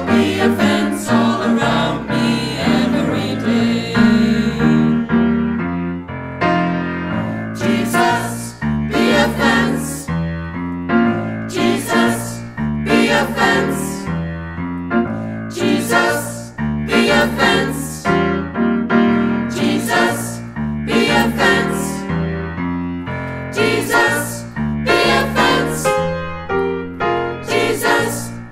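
Mixed choir singing a gospel song in harmony, accompanied by a grand piano, over a steady beat of sharp accents about once a second.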